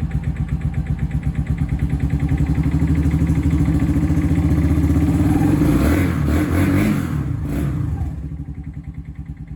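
Small motorcycle engine, just started after sitting unused, running with an even thumping beat that quickens and gets louder over the first few seconds, is briefly revved about six seconds in, then drops back to a slower idle near the end.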